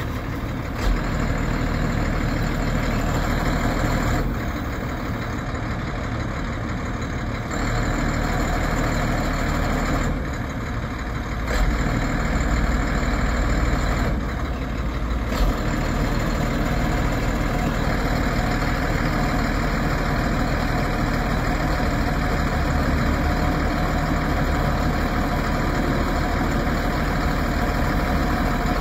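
1992 Ford F700 bucket truck's engine running steadily at idle while the aerial boom is operated, its sound shifting briefly a few times.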